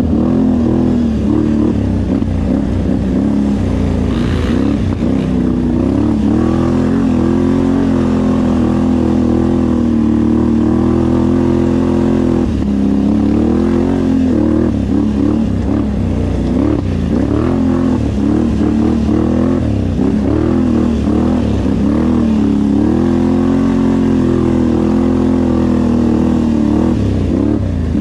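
Off-road vehicle engine running under constantly changing throttle, its pitch rising and falling again and again as it rides the trail.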